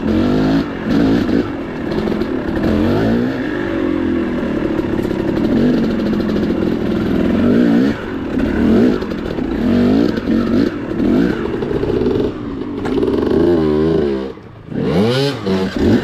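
Two-stroke dirt bike engine with a Keihin PWK 36 carburettor, revved up and down over and over as the bike is ridden over slippery, rocky ground. Near the end the throttle is shut for a moment, then the engine revs up sharply again.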